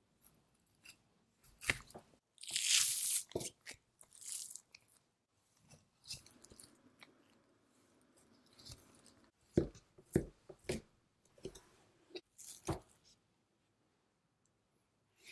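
Long knife cutting through a block of Wagyu beef knuckle (kame-noko): moist slicing strokes of the blade through the meat, the longest and loudest about two to three seconds in, then softer strokes and a few sharp ticks. The sound stops about two seconds before the end.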